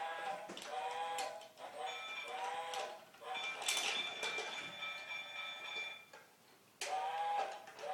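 A children's electronic toy playing a short tune of bright notes, with a long steady high electronic tone through the middle and a few clicks.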